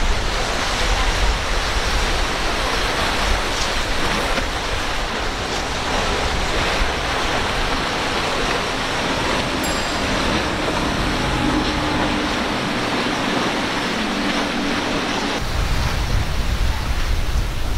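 Outboard-powered center-console boats running fast through chop: a steady rush of hull spray and waves with the faint hum of the outboard motors under it. About fifteen seconds in the sound changes, with more low rumble.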